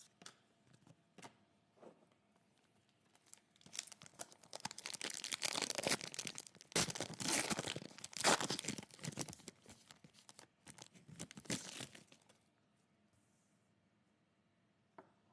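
Foil trading-card pack wrapper being torn open and crinkled: a few light clicks, then about eight seconds of tearing and crackling, loudest in the middle.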